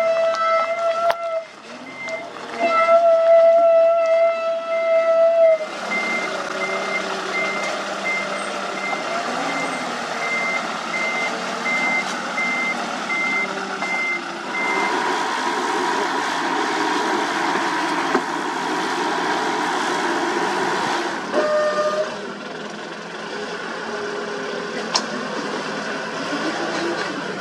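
Reversing alarm of a dump truck beeping steadily, about two beeps a second, over the running of diesel construction machinery. A vehicle horn sounds twice in long steady blasts in the first few seconds, and the alarm stops about halfway through. A short toot of the horn comes near the end.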